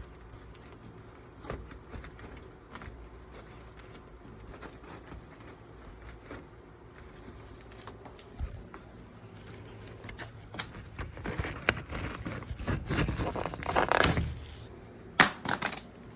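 Furnace air filters being handled: faint light clicks, then a few seconds of irregular rustling and scraping of the filter's cardboard frame, ending in two sharp knocks.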